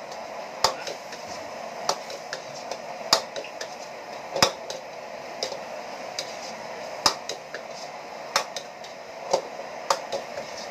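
Metal ladle knocking and scraping against a steel wok while beef stir-fries, with sharp knocks about once a second over a steady sizzle.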